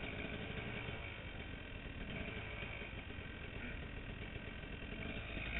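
Dirt bike engine idling steadily.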